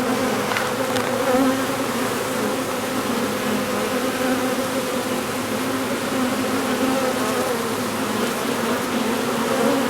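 A honeybee swarm buzzing loudly around a nucleus hive as the bees walk in, a steady mass hum with a low drone and a higher overtone.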